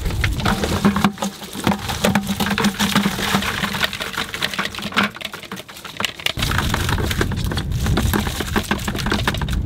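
Live spot prawns being shaken out of a wire-mesh prawn trap into a bucket: a dense, irregular patter of clicks and rattles as the prawns drop and the mesh knocks. A low rumble comes in after about six seconds.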